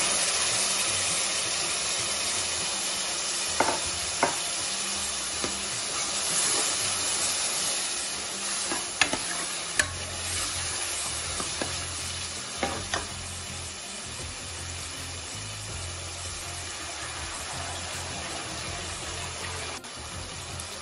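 Soaked moong and masoor dal sizzling in hot oil as it goes into an onion-tomato tadka, the hiss loudest at first and slowly dying down. A metal ladle stirring it clinks against the pot several times.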